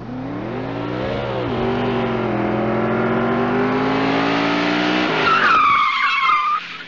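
A car engine revving up, its pitch climbing, then tyres screeching for about a second near the end.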